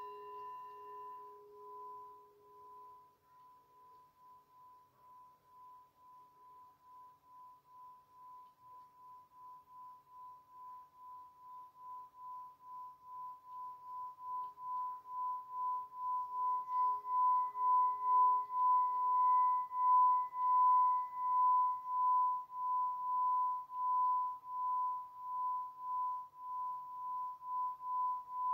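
Hand-held metal singing bowl struck with its wooden mallet, its ring fading, then rubbed around the rim so one clear high tone builds up over about fifteen seconds into a loud, pulsing sustained ring.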